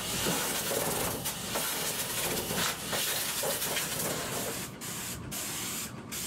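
Steady hiss of pressurised spray equipment on a cooling-tower coating job, cutting out briefly about three times in the second half.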